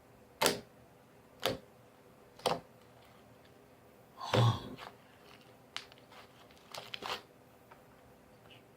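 Short sharp sticky clicks from paint-tinted slime glue being stirred in a bowl with a finger. The first three come about a second apart, and a louder, fuller squelch about halfway through is followed by a few fainter clicks.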